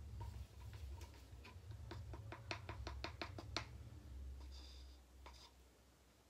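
A stick clicking against a small plastic cup of acrylic paint: a run of sharp clicks that quickens to several a second, stopping about three and a half seconds in.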